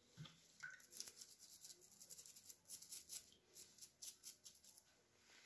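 Small wire brush scrubbing an iron ring wet from a soapy electrolysis bath, a quick series of faint scratchy strokes starting about a second in and stopping near the end; it is scrubbing loosened rust residue off the metal.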